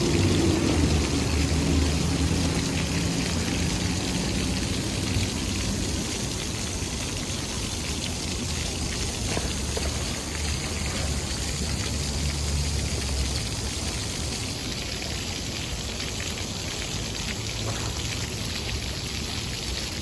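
Steady splashing of a row of small vertical fountain jets falling back into a shallow pool. A low rumble sits underneath, stronger at the start, in the middle and near the end.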